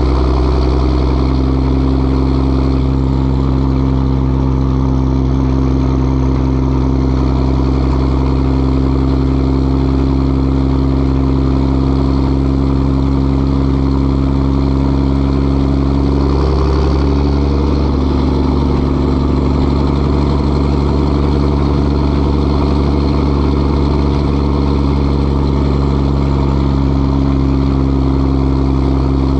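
1988 Mack R-model diesel truck running steadily under way through five-inch dual straight pipes with no mufflers. The exhaust note holds steady, dips briefly in pitch a little past halfway, then settles back to a steady note.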